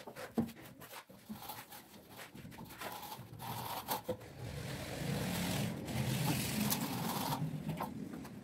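Hand tool scraping through wet cement mortar. The scraping grows over a few seconds, runs steadily, then cuts off suddenly near the end, with a few short knocks earlier on.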